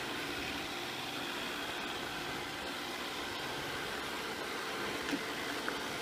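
Samsung SR8730 robot vacuum cleaner running over a wooden floor: a steady whir from its suction fan and motors, with its side brushes sweeping. A couple of light clicks come near the end.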